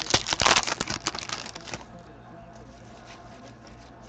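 Sports card pack wrapper crinkling and tearing as it is pulled open, for about the first two seconds. Then the quieter, soft flicks of the cards being handled and thumbed through.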